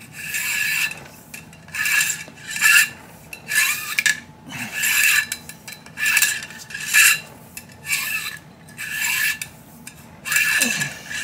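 Bore brush on a cleaning rod being pushed back and forth through an AR-10 rifle barrel: repeated rasping scrapes, about one stroke a second.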